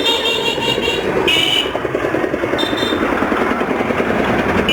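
A motorcycle engine running steadily, with short high-pitched tones twice over it.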